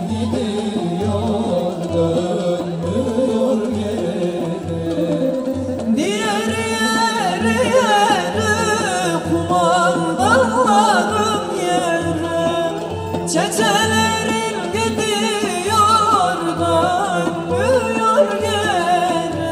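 Şanlıurfa folk music for a line dance: a steady low drum beat under a melody. A voice begins singing about six seconds in, with ornamented, bending phrases.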